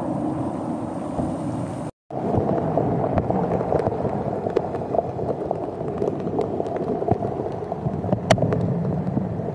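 Torrential rain pouring down and splashing on wet pavement, with water sheeting off a canopy edge and many scattered drip and splat ticks. The sound drops out for a moment about two seconds in.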